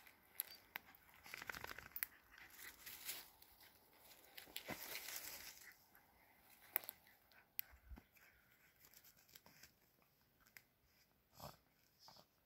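Terriers' paws scratching and digging in loose forest soil and woody debris: an uneven run of crackly scrabbling and crunching, busiest in the first half, then sparser scratches.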